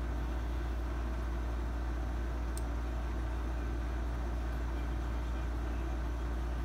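A steady low hum with no change in level, and a faint short tick about two and a half seconds in.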